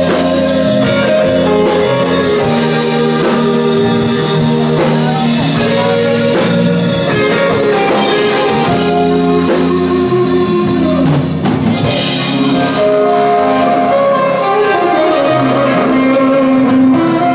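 Live band playing loudly on amplified electric guitar and drum kit, with sustained chords and steady drumming.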